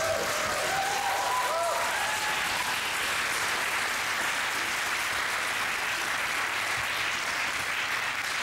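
Studio audience applauding steadily, with a few cheers in the first couple of seconds.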